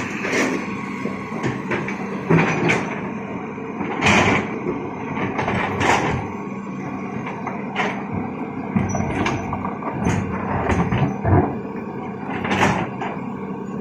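Excavator working with a steady engine hum, under repeated sharp knocks and clatter of rock against the bucket.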